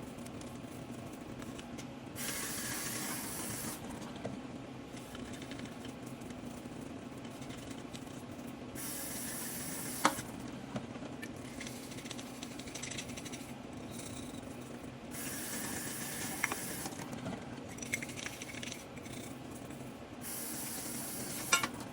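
Water spraying from a tap in short bursts, about three times, as espresso filter baskets are rinsed, with small clicks and knocks of metal between. A steady low hum runs underneath.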